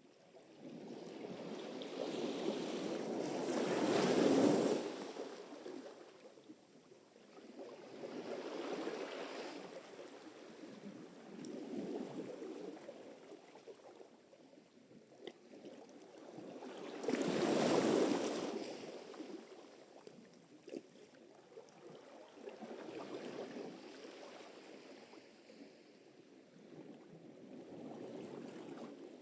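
Sea surf: waves breaking and washing on the shore, swelling and fading in turn, with two larger breakers about four seconds in and past the middle.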